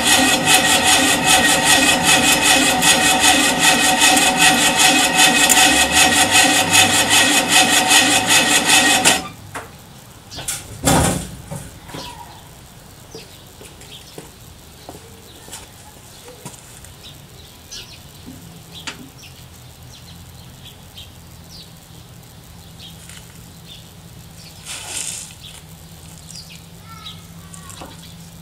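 Freshly rebuilt 1600cc single-port air-cooled VW flat-four in a 1971 Westfalia bus running steadily on its first startup, then shut off suddenly about nine seconds in. A single loud thump follows about two seconds later, then only faint clicks.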